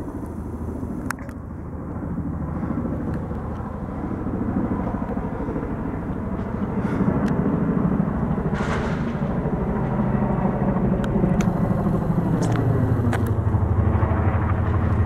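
Boeing CH-47 Chinook tandem-rotor helicopter flying overhead, its rotors beating in a rapid low chop that grows steadily louder as it comes closer.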